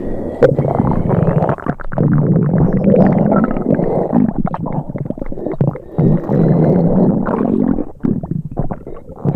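Sick-stomach rumble sound effect: a long, loud gurgling growl that flutters irregularly, with a few short breaks.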